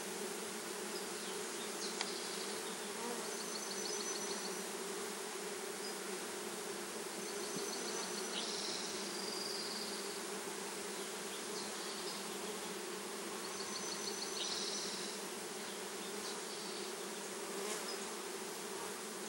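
Steady hum of a mass of Italian honeybees just shaken from a package into an open hive box. Faint short high chirps come and go every few seconds over the hum.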